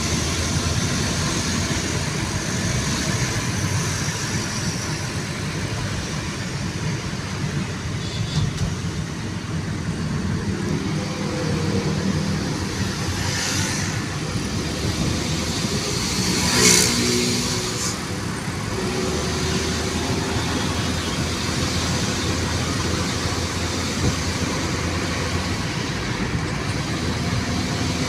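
Road traffic: cars and engines passing steadily, with one vehicle going by louder a little past halfway.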